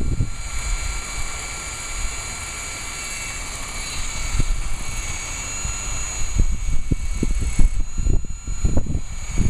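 Electric drill with a 1/4-inch masonry bit running steadily as it bores into concrete. It is a regular drill, not a hammer drill. Wind buffets the microphone, harder in the last few seconds.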